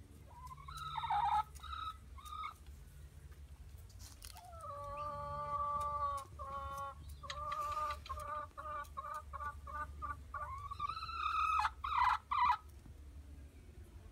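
Hens clucking and calling: a few short calls, then a drawn-out call, then a quick run of short clucks, about three a second, and rising, louder calls near the end.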